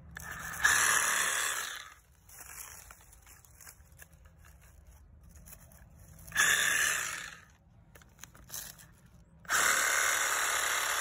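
Compact Milwaukee cordless reciprocating saw running in short bursts as it cuts through soft elephant ear stems at the base of the plant. It runs about a second and a half starting just under a second in, again for about a second around the middle, and then starts again near the end and keeps running, with faint rustling between the bursts.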